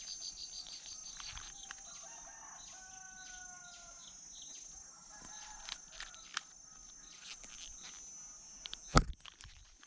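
A rooster crows in the background about two to four seconds in, over a steady high shrilling of insects. About nine seconds in there is a single sharp snap, the slingshot's rubber bands releasing on a shot.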